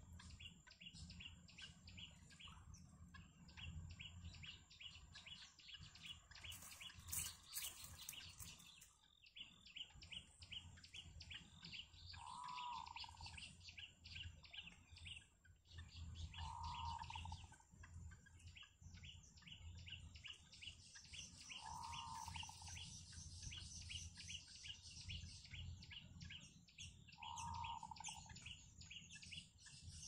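Yellow bittern chicks begging at the nest with a fast, steady run of high chirps. A lower call is heard four times, roughly five seconds apart.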